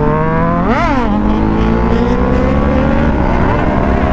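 Superbike engine accelerating hard in one gear, its pitch climbing steadily, over steady wind rush. About a second in, another motorcycle close by revs sharply up and drops back down.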